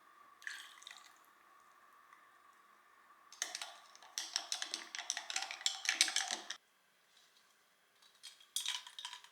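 Small hard objects being handled: a few clicks, then about three seconds of rapid clinking and clattering, and another short clatter near the end.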